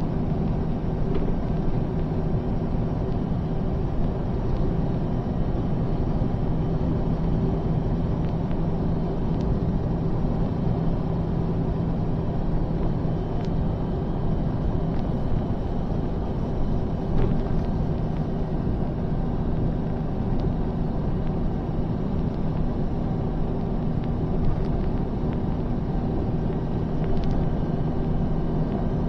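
Five-ton truck's engine droning steadily at highway cruising speed, heard from inside the cab with road noise underneath.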